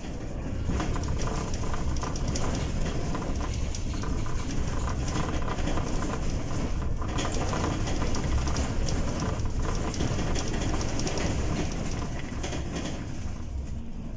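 Cabin noise of a Bolloré Bluebus 12-metre battery-electric bus on the move: steady road and tyre rumble with a constant clatter of rattling interior panels and fittings.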